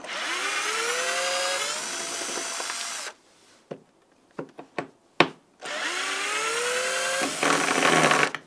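Power drill running in two bursts of about three seconds, its pitch rising as it spins up each time, with a few sharp clicks in the pause between.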